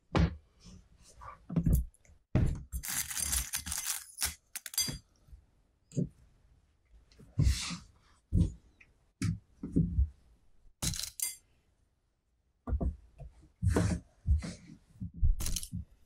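Fabric being handled and smoothed out on a table by hand: soft rustles and a longer scraping slide of cloth, mixed with scattered light thumps of hands on the tabletop.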